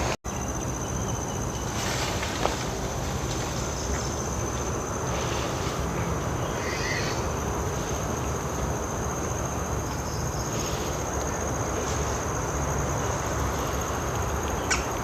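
Insects trilling in a steady, high-pitched chorus, over a continuous low rumble.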